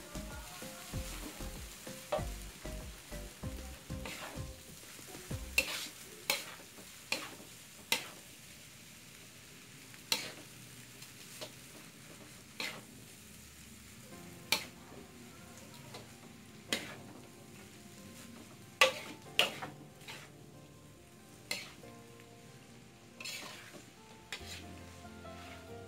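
Metal spatula scraping and clanking against a wok as fried noodles are stir-fried, over a steady sizzle of frying. The sharp scrapes come every second or two.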